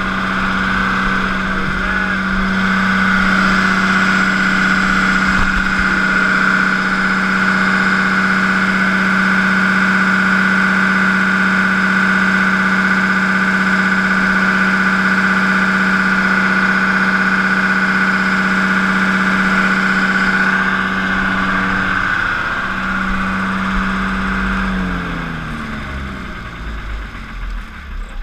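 MEP-005A 30 kW diesel generator set running at steady speed with a constant hum. About 25 seconds in it is shut down, and its pitch falls and the sound fades as the engine slows.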